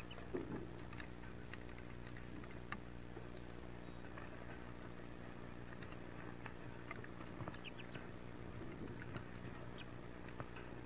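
Wood duck ducklings shuffling in the nest box, their feet and bodies making soft scratches and scattered clicks on the wood and shavings, over a steady low hum.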